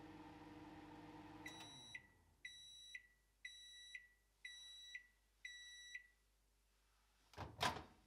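Microwave oven running with a steady hum that winds down about a second and a half in as the cycle ends, followed by five high beeps evenly spaced about a second apart, the end-of-cycle signal. A loud double clunk comes near the end.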